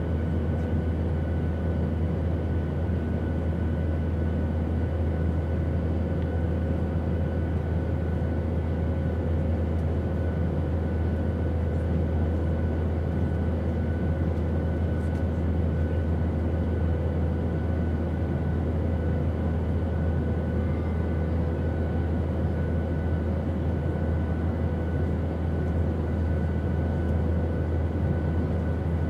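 Steady airplane noise: a constant deep rumble with a few faint steady tones riding above it.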